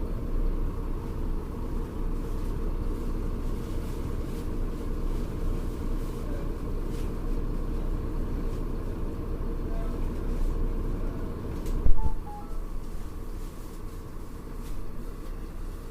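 Mercedes-Benz O-500U city bus engine running, a steady low rumble with a ZF Ecomat automatic gearbox, with one loud knock about twelve seconds in, after which it runs a little quieter.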